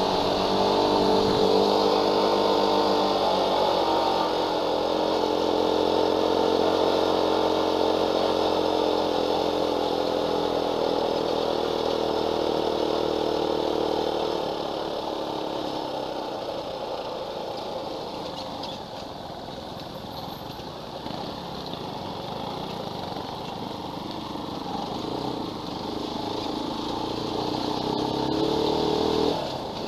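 Dirt bike engine running while it is ridden, a steady engine note under the rider for the first half. About halfway in the engine note falls away into a rougher rushing wind and road noise. The engine rises again briefly near the end.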